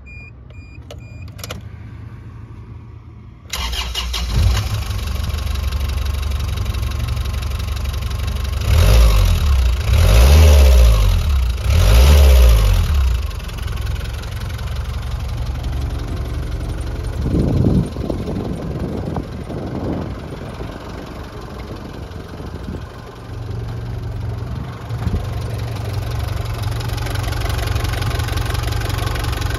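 Isuzu Elf diesel engine starting after a few short beeps, catching about three and a half seconds in and settling to idle. It is revved in several quick blips near the middle, then idles steadily again.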